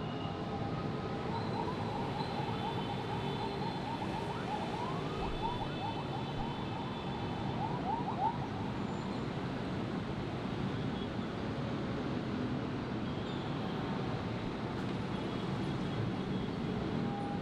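Dense city traffic, a steady wash of engines and tyres, with a siren warbling up and down from about two seconds in until about eight seconds in, then traffic alone.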